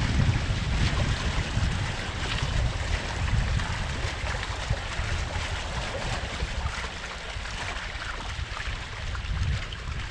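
Wind buffeting the microphone and water rushing and splashing along the hull of a small sailboat under way. The low wind rumble is heaviest at first and eases after a couple of seconds.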